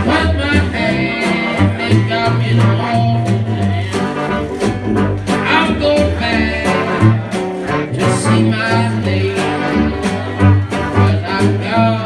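A small traditional New Orleans jazz band playing a tune together: clarinet, trumpet, trombone and tenor saxophone weave over a walking sousaphone bass line and strummed guitar.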